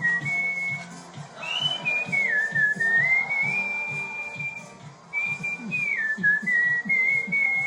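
A whistled tune: one clear pitched note that holds, wavers and glides up and down through a melody, with soft low thuds underneath.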